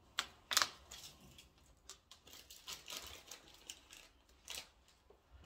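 A long inflated latex balloon being handled and tied at the neck: scattered squeaks and clicks of rubber rubbing under the fingers, two sharper ones close together near the start, then fainter ones.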